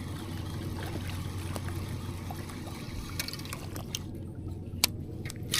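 Faint trickling water over a steady low hum, with a few light clicks in the second half.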